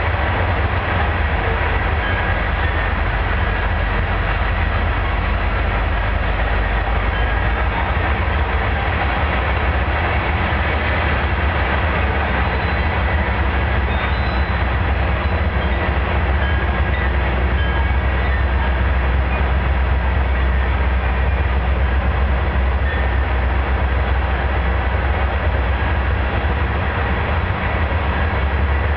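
Freight train of covered hopper cars rolling past: a steady noise of steel wheels on rail, heaviest in a deep low rumble.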